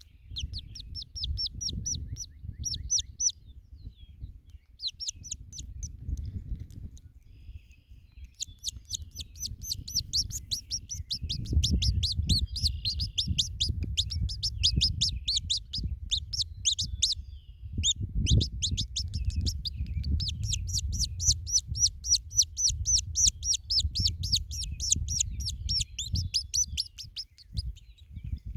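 Baby chick peeping: rapid runs of short, high-pitched peeps, several a second, with brief pauses between runs. Low rumbling and bumping noise underneath.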